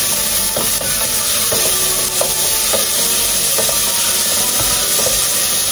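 Chopped onion and garlic sizzling in olive oil in a stainless steel pot, sautéing toward translucent for a sofrito. A wooden spoon stirs the pan, with light scrapes and taps against the pot every half second or so.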